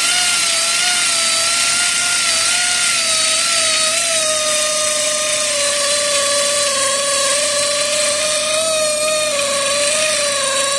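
Pneumatic air ratchet on a long socket extension running steadily on a suspension bolt nut, a continuous loud whine that sags slightly in pitch and cuts off suddenly at the end.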